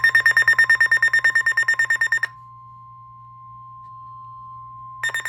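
Emergency Alert System tones: a rapidly pulsing, buzzing electronic data burst for about two seconds, then a quieter steady single-pitch alert tone for nearly three seconds. The pulsing burst starts again near the end.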